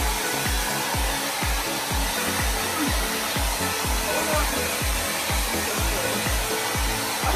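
Blow dryer running steadily while drying a dog's coat, over background music with a steady low beat about twice a second.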